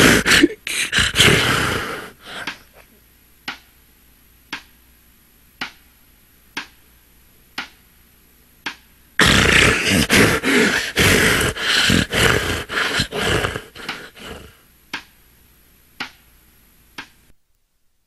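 A person snoring in rough, throaty spells: one for about two seconds at the start and a longer one of about five seconds from the middle. In the quiet between and after, sharp ticks come about once a second.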